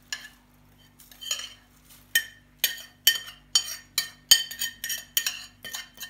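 A spoon scraping and knocking against a ceramic plate about twice a second to push buttered biscuit crumbs off it, each knock with a short ring. The first two seconds are quieter, with only soft crumbs sliding.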